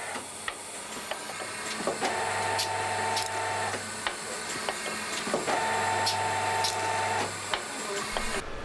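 Automated ballpoint-pen assembly machine at work: scattered mechanical clicks, and two whirring motor runs of about a second and a half to two seconds each. The sound changes to a low rumble near the end.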